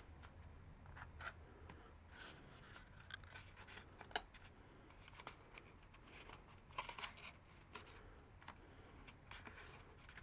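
Faint scattered rustles and small clicks of thin card being folded and pressed into a tube by hand, over a low room hum.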